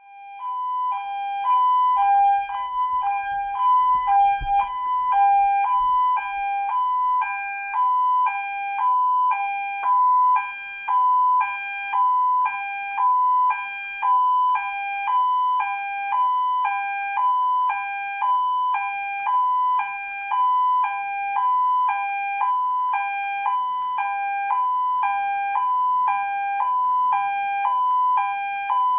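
Two-tone ambulance siren switching steadily back and forth between a higher and a lower note, a little under one and a half cycles a second.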